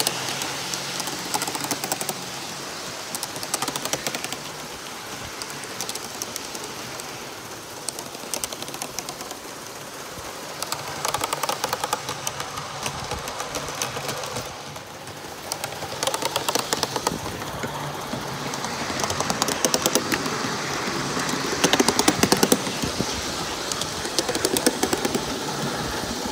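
1/32 scale live-steam model of an NSWGR 38-class locomotive running with a goods train: a steady rush of running noise with rapid fine clicking of wheels on the track. It grows louder twice as the train passes close, about 11 seconds in and again from about 16 seconds on.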